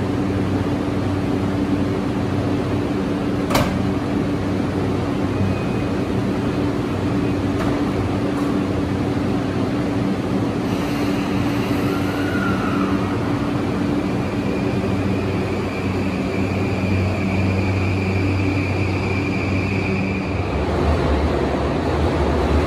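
JR East E235-1000 series electric train starting away: a steady electrical hum, a sharp clack about three and a half seconds in, then from about halfway the whine of its inverter and traction motors as it accelerates, with a low rumble swelling near the end.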